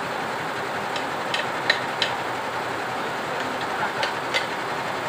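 Sharp metallic clinks and taps of hand tools and parts being handled while a Vespa engine is taken apart, a few in quick succession about a second in and two more near the end, over a steady background hiss.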